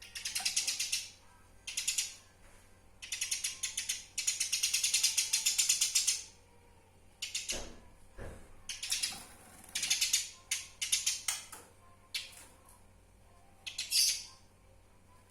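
Eurasian tree sparrow chattering: bouts of fast, ratchet-like chirp trains, each half a second to two seconds long, the longest a little past the middle of the first half, with two short low thumps around the middle.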